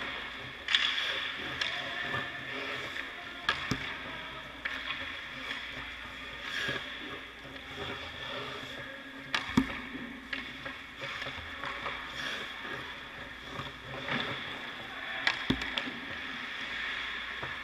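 Hockey skates scraping and carving on rink ice, with several sharp knocks of puck and stick, the loudest about halfway through.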